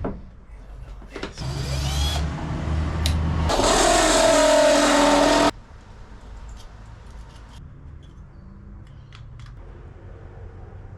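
Power drill spinning up with a rising whine, then running loud and steady for about two seconds before stopping abruptly a little past halfway; light clicks and knocks follow.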